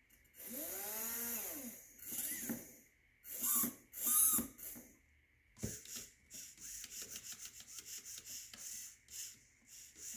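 Electric RC car motor driven through a Plasti Dip–waterproofed ESC that is submerged in water and still working. The motor is revved in short throttle bursts, each a whine that rises and falls in pitch. From about six seconds in it gives a rapid pulsing run of about four or five pulses a second.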